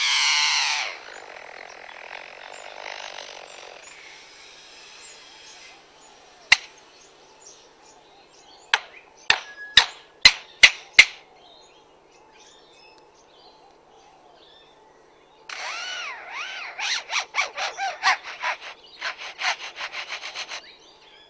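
A lyrebird mimicking construction sounds: a falling sweep at the start, then a few seconds of sawing-like rasp, a handful of sharp knocks around ten seconds in, and from about three quarters of the way through a rapid run of tool-like taps mixed with looping whistles.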